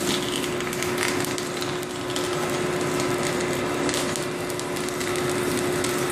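Corn puff extruder running with a steady motor hum, over a dense crackling and crunching from the hot puffed corn tube being pushed out of the die.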